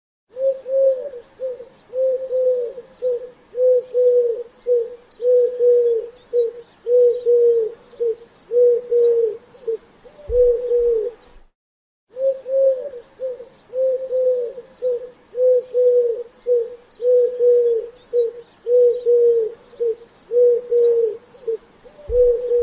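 Pigeon cooing, a quick run of short, low coos a bit more than one a second, broken by a brief silence about halfway through before the same cooing resumes.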